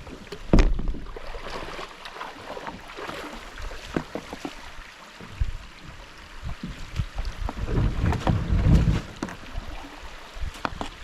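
Kayak being paddled: irregular paddle splashes and water sloshing around the boat, with gusts of wind rumbling on the microphone and a loud thump about half a second in.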